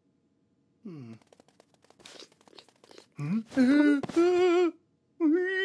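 A cartoon man's wordless cries of fright at a spider: loud, wobbling whimpering yelps that waver in pitch, starting about three seconds in, with a second held cry near the end. A short falling vocal sound comes about a second in.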